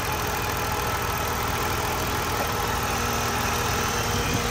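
Car engine idling steadily after a Walbro 255 fuel pump and new fuel filter were fitted. The owner says it is still running the same as before the swap and suspects a vacuum leak or a tune problem.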